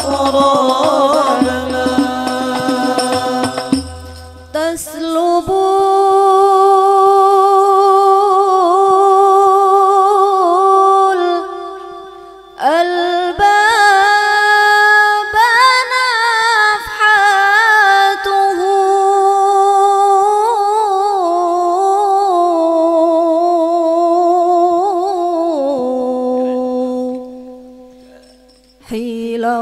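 Amplified Arabic devotional singing (sholawat). A fuller passage with low beats fades out about four seconds in, then a woman sings solo into a microphone in long, ornamented held notes, pausing twice.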